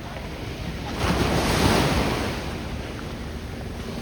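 Ocean surf: a wave breaks about a second in, swells and fades back into the steady wash of the waves.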